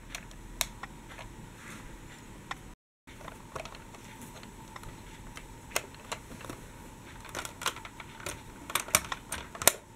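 Light plastic clicks and taps from hands handling toy trams, scattered and sparse, with a cluster of sharper clicks near the end.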